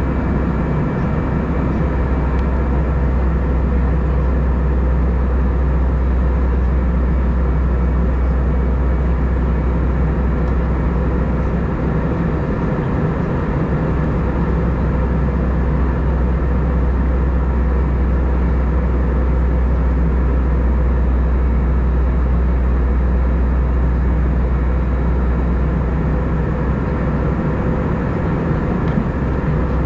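Steady in-flight cabin noise of an Airbus A320: a constant deep drone of engines and airflow, with a few steady tones riding on it.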